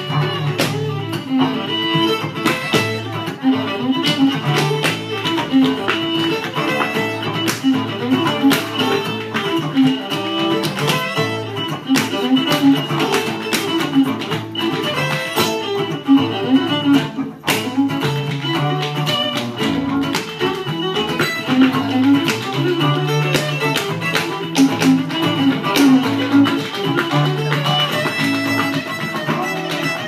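A live fiddle, acoustic guitar and upright bass playing an instrumental tune, with the sharp taps of a step dancer's feet on the stage.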